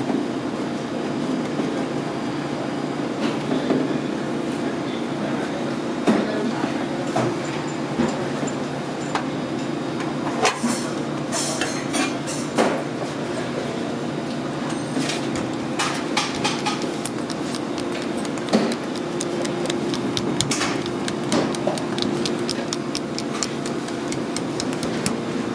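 Commercial kitchen background: a steady hum of running equipment, with scattered clicks, knocks and light clatter throughout.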